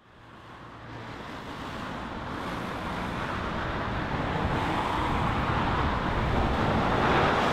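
Road traffic: cars driving past on a street. It fades in from silence and grows steadily louder.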